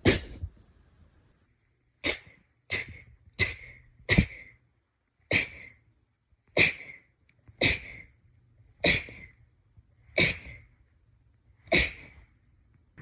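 A rapid run of about a dozen short sneezes, one roughly every second, with quiet between them.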